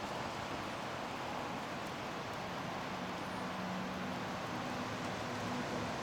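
Steady hiss of road traffic, with a low engine hum coming in about halfway through.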